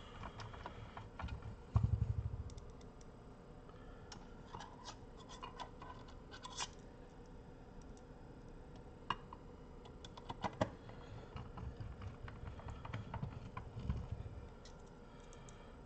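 Small screws being driven into a car amplifier's metal chassis with a hand screwdriver: scattered clicks and short scrapes of the driver and screws, with a low thump about two seconds in.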